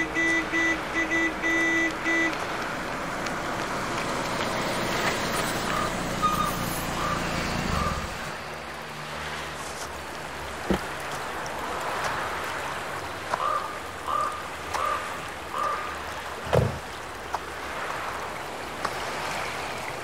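Cars pulling up and stopping: a car horn beeps in short taps at the start, engines run and build, then cut off about eight seconds in. Car doors shut with a thump twice later on.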